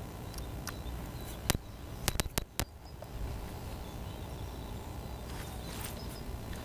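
Low wind rumble on the microphone, with a cluster of five sharp clicks between about one and a half and two and a half seconds in.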